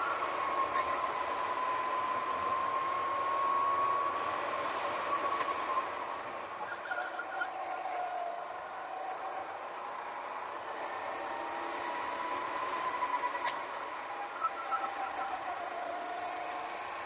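Go-kart engine running flat out on a lap, its note rising and falling as the driver accelerates out of corners and lifts into them, over a steady rushing noise.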